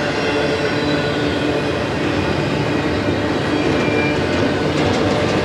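Double-stack intermodal train's loaded well cars rolling past: a steady rumble of steel wheels on rail with faint high wheel squeal, and a few clicks near the end.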